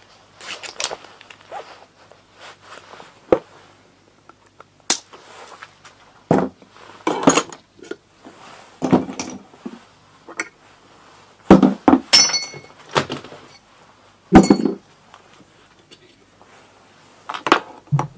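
Small metal engine parts, bolts and washers, clinking and knocking as they are handled and set down on a workbench: a string of separate knocks, one clink about twelve seconds in ringing briefly.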